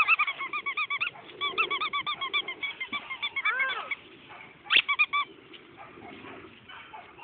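Squeaky dog toy squeaking in quick runs, about five squeaks a second for the first four seconds, as the bulldog puppy bites and tugs at it. A second short run of squeaks comes about five seconds in.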